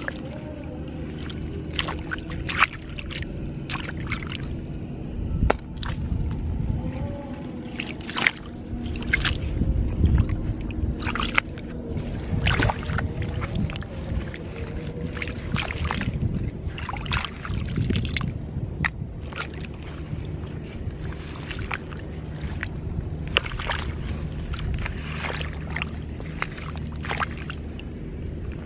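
Shallow muddy water sloshing and splashing as hands and legs work through it among water plants, with irregular splashes and rustling of stems and leaves.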